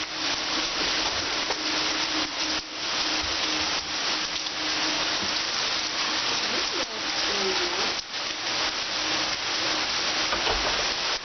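Heavy typhoon rain pouring down, a dense, steady hiss of falling water.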